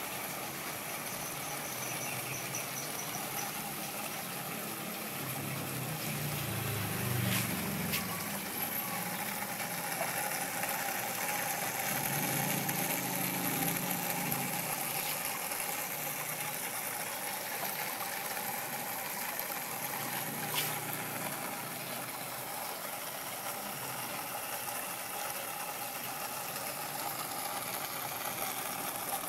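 Aquarium water pump running steadily, feeding water that flows and trickles through a home-made two-compartment overhead biological filter. Two sharp clicks, about seven and about twenty seconds in.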